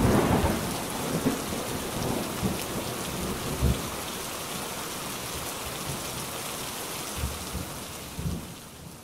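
Thunderstorm: steady heavy rain with thunder, opening with a loud burst of thunder and followed by several low rumbles. The storm fades down near the end.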